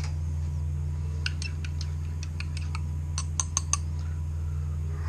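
Teaspoon clinking against the inside of a porcelain espresso cup as the espresso is stirred: about a dozen quick, ringing clinks over a couple of seconds, the last few loudest. A steady low hum runs underneath.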